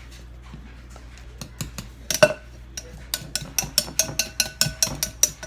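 Stirring sourdough starter (flour, water and a pinch of sugar) in a bowl, the utensil clinking and tapping against the bowl: a few scattered knocks, then a quick run of taps, about four a second, in the second half, some with a short ring.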